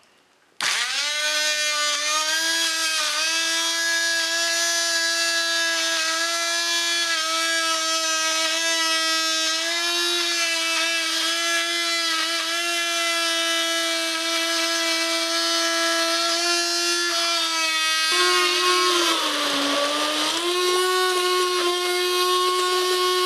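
Handheld immersion blender switching on about half a second in and running steadily as it purees whole blueberries into a liquid. Its motor whine dips in pitch briefly near the end, then picks back up.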